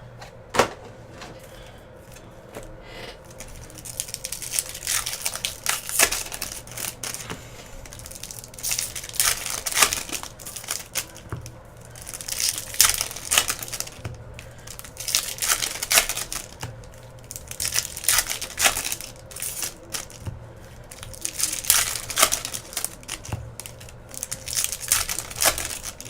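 Plastic wrapping on a box of 2017 Bowman baseball card packs being torn open and crumpled, in repeated crinkling bursts with a few sharp clicks.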